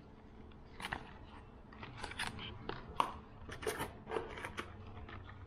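Stiff plastic blister packs of fishing lures crinkling and clicking as they are handled and set down on a hard countertop: an irregular string of sharp crackles, loudest about three seconds in.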